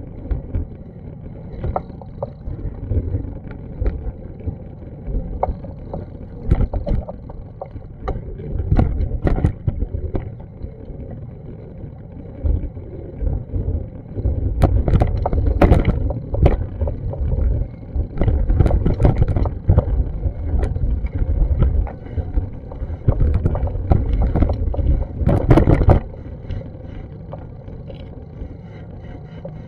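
Uneven low rumble of wind and handling noise on a handheld action camera's microphone, with irregular knocks and clicks. It is loudest from about halfway in until near the end.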